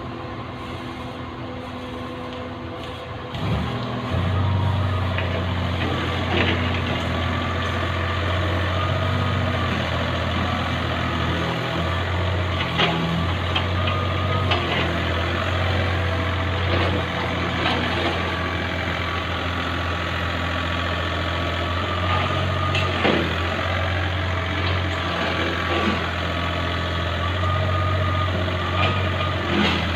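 Diesel engines of a mini excavator and a crane working together, running harder from about three and a half seconds in with a steady low drone. Occasional short metal clanks come through.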